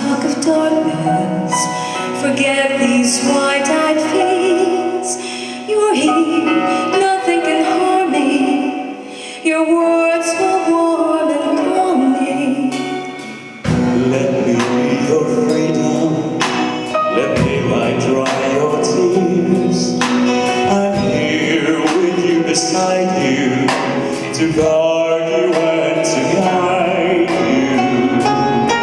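Live band playing a medley of English pop duets, with a male and a female singer over keyboard, bass and drums; the music thins out briefly about halfway through before the full band comes back in.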